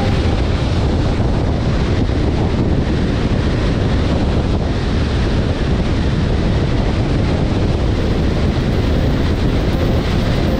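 Steady, even rush of road and wind noise from a car driving along the road, with wind on the microphone.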